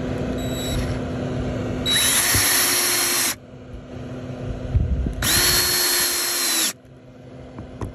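Power drill driving gasketed roofing screws through cable hooks into an asphalt-shingle roof. There are two runs of about a second and a half each, about two and five seconds in, and each quickly spins up to a steady whine.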